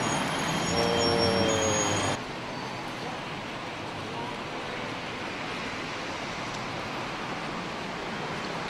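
A motor vehicle running in the first two seconds, cut off abruptly, then a steady noisy hiss of outdoor traffic ambience.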